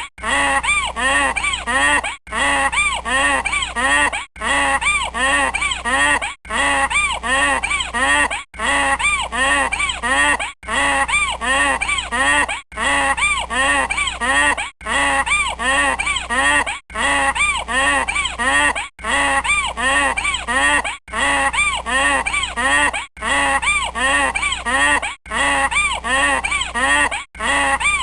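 Donkey braying: a rapid run of rising-and-falling hee-haw calls, about four or five a second. It repeats as a loop of about two seconds with a very short break between repeats.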